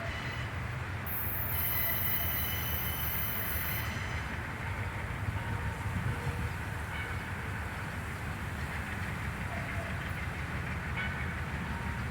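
Freight train of HFD hopper wagons hauled by GE U20C diesel locomotives passing with a steady low rumble. A high-pitched squeal rings out from about one to four seconds in.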